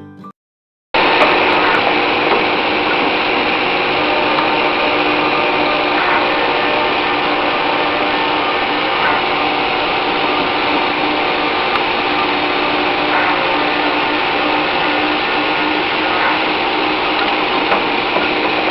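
Automatic carbide-tipped (TCT) circular cold saw cutting steel bar stock. The machine noise is loud and steady, with several held whining tones, and it starts about a second in.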